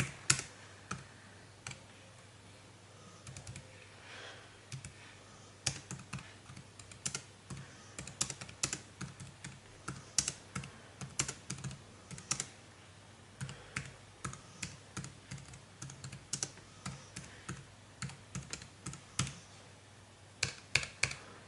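Typing on a folding aluminium Bluetooth keyboard: quick irregular runs of key clicks, with a short pause about two seconds in.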